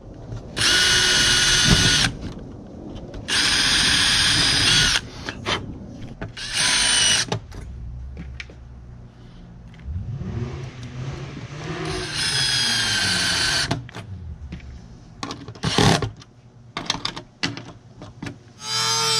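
Cordless drill running in short bursts as it drives into plywood: four runs of motor whine about one to one and a half seconds long, plus a brief fifth, with clicks and handling noises between them.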